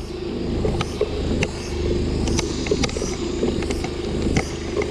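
Motorcycle engine running steadily at low road speed, with irregular knocks and rattles from the bike jolting over a badly broken road surface.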